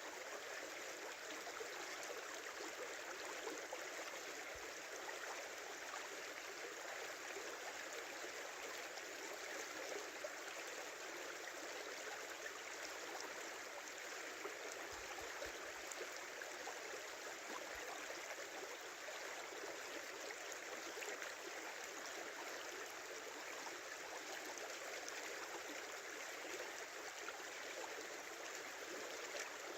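Small river flowing steadily, its water rushing and babbling in an even, unbroken stream.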